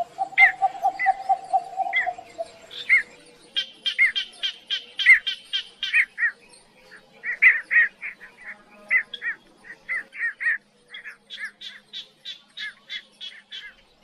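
Birds calling: series of short, sharp chirps repeated throughout, with a fast low trill in the first couple of seconds.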